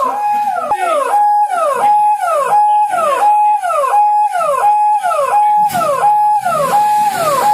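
Emergency vehicle siren sounding a repeating cycle: a held tone that then drops in pitch, about one and a half times a second.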